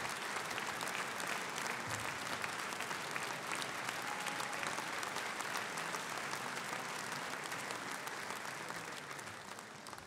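Concert audience applauding steadily, the clapping thinning and fading near the end.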